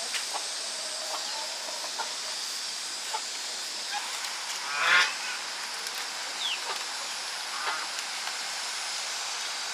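Farm birds calling, with a single loud honk about five seconds in and a few fainter calls around it, over a steady high hiss.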